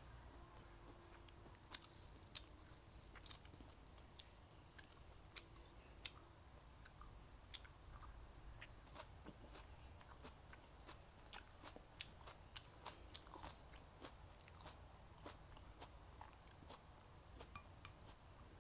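Faint close-up chewing of a mouthful of food, with many small sharp mouth clicks scattered through.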